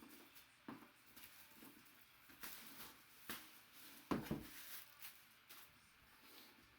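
Faint handling noises as a box is opened: scattered light clicks and rustles of packaging, with one louder knock about four seconds in.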